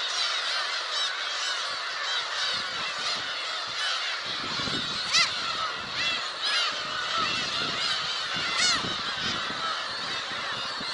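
A colony of black-tailed gulls calling: a dense chorus of many overlapping, cat-like mewing calls, with a few louder calls close by about halfway through.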